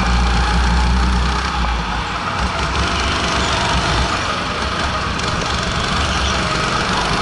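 Go-kart engine running hard through a lap, heard up close from a camera mounted on the kart, its level dipping slightly about two seconds in and then holding steady.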